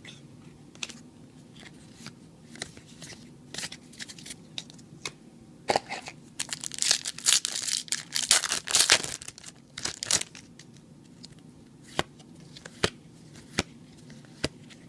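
Foil booster pack wrapper crinkling and tearing for about four seconds in the middle, with scattered sharp clicks and snaps of trading cards being handled before and after.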